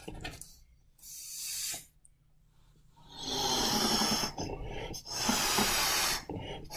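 A person blowing hard through a bendy drinking straw to inflate a balloon taped onto it. A short breath about a second in, then from about three seconds long breathy blows with brief breaks between them as the balloon fills.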